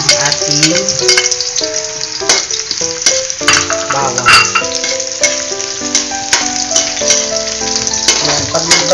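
Sliced garlic and onion sizzling in hot oil in a wok, with a metal turner clicking and scraping against the pan as it is stirred. Background music with a melody plays over it.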